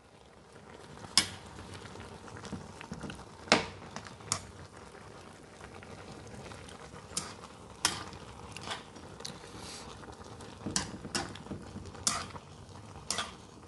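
Ramen noodles simmering in broth in a frying pan with a steady bubbling, while a metal fork stirs them and clinks sharply against the pan about nine times.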